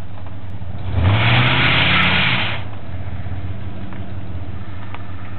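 Ford F-150 pickup's engine idling, revved once about a second in for about a second and a half, then dropping back to idle. The rev is held against the brakes in a power brake.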